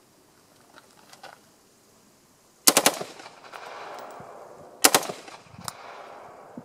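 M4 carbine firing two short fully automatic bursts of 5.56 mm rounds, the first about two and a half seconds in and the second about two seconds later. Each burst is a few rapid shots followed by an echo dying away.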